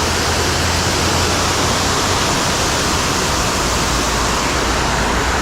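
Water pouring over a creek spillway: a steady, loud rush of falling water.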